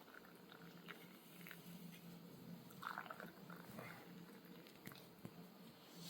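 Near silence: faint room tone with a low steady hum and a few soft clicks and rustles.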